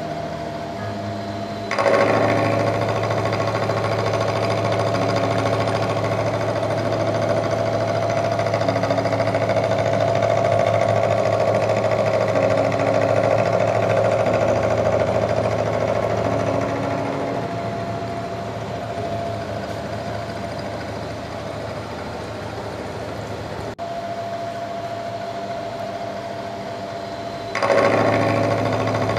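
Milling machine with an end mill cutting solid D6 tool steel under flood coolant: a steady mechanical hum with a held mid-pitched whine. It grows louder about two seconds in, eases off in the second half, and jumps up again near the end.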